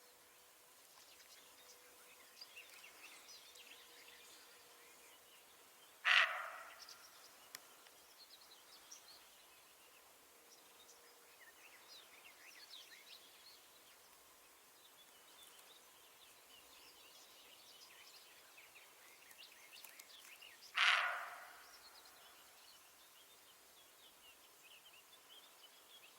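Two loud, sharp calls about fifteen seconds apart, each fading over about a second, over faint bird chirping.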